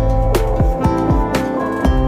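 Background music with a steady beat, one strong hit about every second over sustained pitched notes.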